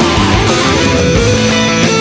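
Rock music led by electric guitar, with a steady drum beat.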